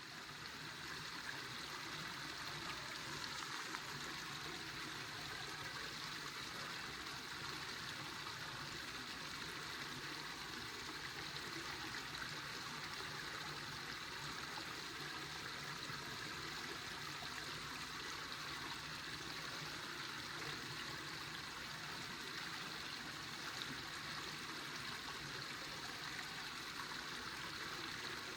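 River water flowing steadily, a constant rushing that fades in over the first second.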